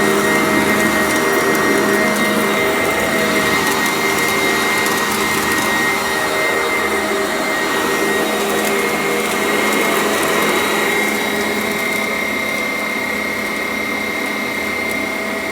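Sanitaire upright vacuum cleaner running steadily, a dense motor rush with a high whine, and faint crackling of crunchy debris being sucked up. The sound eases slightly about eleven seconds in.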